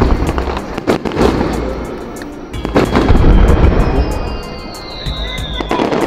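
Aerial firework shells bursting in several sharp booms with crackle and low rumble between them, mixed with background music. A slowly falling whine runs through the last two seconds.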